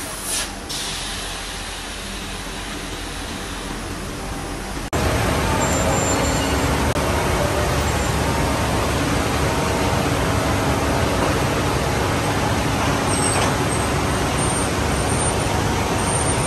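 Steady mechanical din of a hot rolling mill's roll stands and drives rolling a red-hot steel bar, with a brief hiss about half a second in. The din turns suddenly louder about five seconds in.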